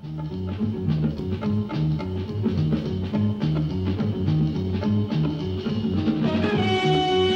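Instrumental television theme music: a repeating low plucked riff over a drum kit, with held chords coming in about six seconds in.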